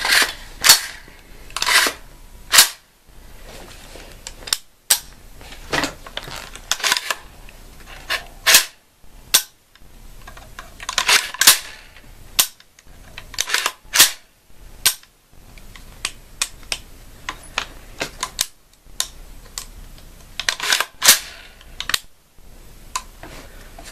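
Sharp metallic clicks and clacks at irregular intervals, some in quick clusters, from working the reassembled AR-15's charging handle and bolt by hand.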